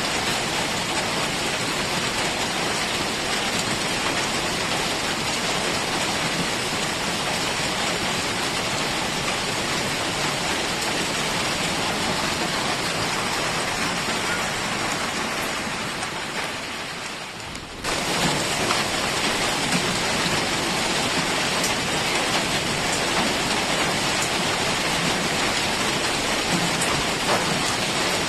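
Heavy rain falling steadily, a dense even hiss of drops. It dips in level for a couple of seconds and comes back abruptly about eighteen seconds in.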